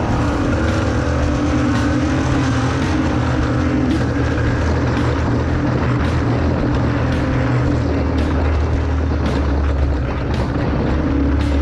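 Off-road race vehicle engine running steadily, a loud continuous drone.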